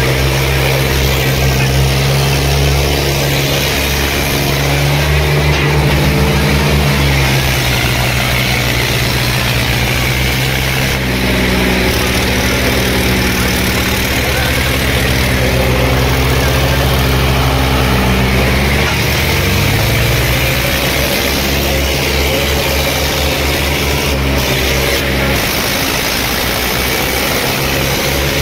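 Diesel tractor engine running loudly and steadily, its pitch shifting about two-thirds of the way through and again near the end.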